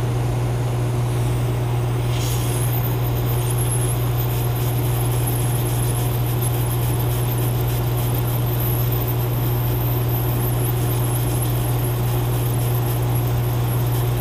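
Hot-air rework station blowing onto a circuit board to desolder a Zener diode: a steady airflow hiss that starts about two seconds in, over a constant low hum.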